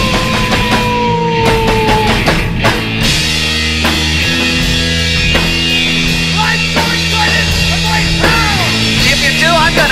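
Live punk-rock band music from a drum kit and an electric bass. A sung "whoa" is held over the first two seconds, falling slightly in pitch, with cymbal crashes. About three seconds in, a heavy bass riff with drums takes over.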